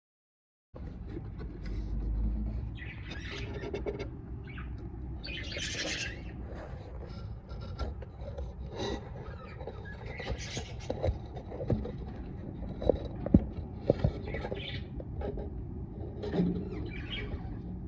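Budgerigars chirping and squawking in short scattered calls, with several sharp knocks and clicks about two-thirds of the way through.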